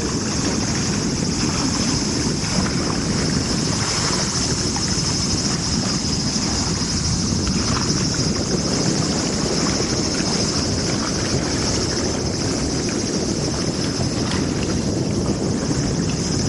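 Wind buffeting the microphone as a steady low rumble, over a constant high-pitched hiss.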